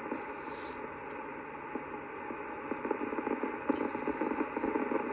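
Static hiss from a Yaesu FTdx5000MP's speaker, tuned to a 10-meter FM repeater on 29.620 MHz whose signal is fading. It is a steady rush of noise with faint crackles, and it cuts off abruptly near the end.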